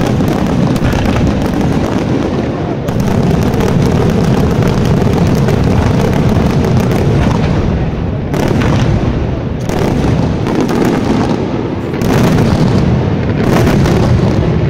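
Daytime fireworks barrage: aerial shells bursting in rapid succession, an almost unbroken volley of loud bangs with a few brief lulls.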